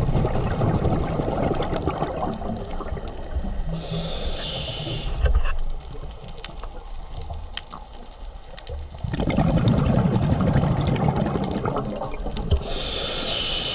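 Scuba diver breathing through a regulator, heard underwater: exhaled bubbles rumble out in two long gushes, each followed by the short hiss of an inhale through the regulator, one about four seconds in and one near the end.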